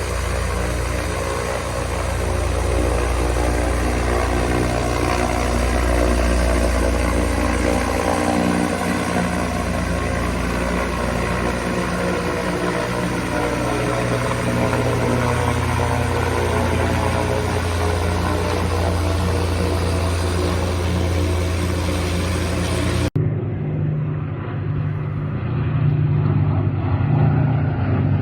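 Aircraft engine noise as a plane passes, a dense stack of engine tones whose pitch slowly falls. About 23 seconds in, it cuts abruptly to a lower, steadier aircraft engine drone from another recording.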